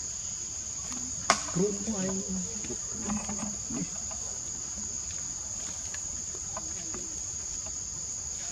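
Steady high-pitched drone of forest insects, with a sharp click just over a second in and a few low voice-like sounds after it.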